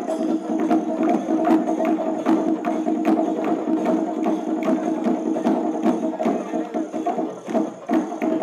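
Padayani procession drumming: sharp, fast drum strokes about three a second over a steady droning tone.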